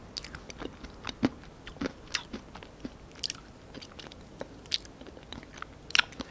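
Close-miked chewing of a spoonful of ice cream with small crunches from the chocolate-coated peanut bits in it, plus wet mouth clicks at irregular moments, loudest near the end.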